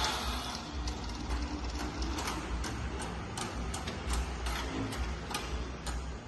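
Automatic fabric spreading machine running on a factory floor: a steady low rumble with a run of sharp, irregular ticks, about two or three a second.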